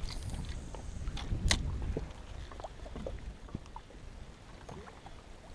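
Water lapping against a small boat's hull over a low, steady rumble, with a few light clicks, the sharpest about one and a half seconds in.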